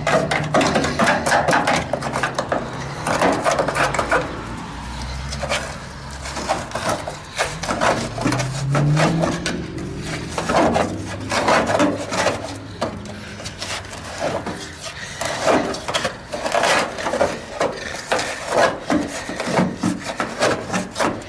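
Long screwdriver scraping and prying hardened old body-cavity foam out of a rusted sheet-steel pillar, in irregular scrapes and knocks as the blade grinds the foam and strikes the metal.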